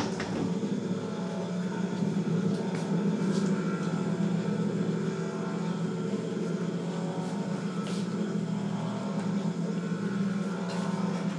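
A steady low mechanical hum with a few faint clicks and knocks scattered through it.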